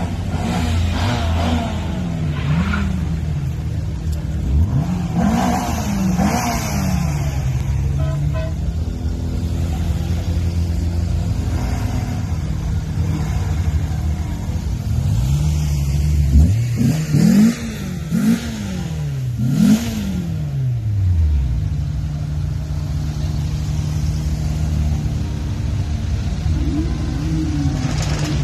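Engines of cars and vans driving slowly past in a line, a steady low hum broken several times by engines revving up and down in pitch, most heavily in a run of revs about two-thirds of the way through.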